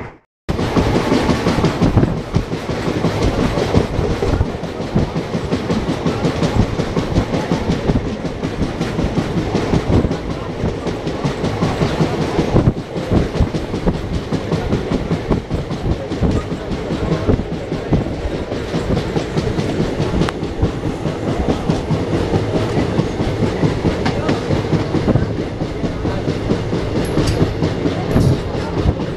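Passenger train coaches running at speed on Indian Railways track: a steady wheel-and-rail rumble with a rapid clickety-clack of wheels over rail joints. The sound cuts in after a split-second gap at the very start.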